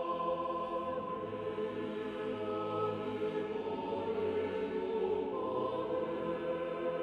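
Background music: a choir singing slow, held chords that shift a few times.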